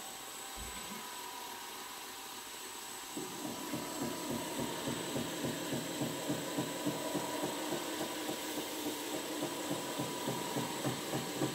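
Belt grinder running while a linen micarta knife handle is held against the belt, taking out the last high scratches before hand sanding. About three seconds in, a steady rhythmic pulsing of about three beats a second sets in over the steady hum of the machine.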